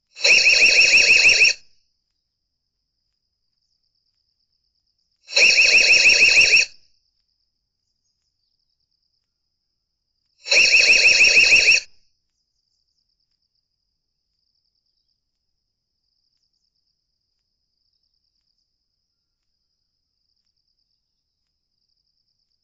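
Electronic alarm siren sounding three times, each a rapid pulsing, high-pitched blast of just over a second, about five seconds apart.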